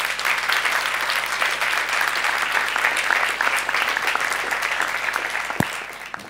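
Audience applauding: dense, steady clapping that fades out near the end.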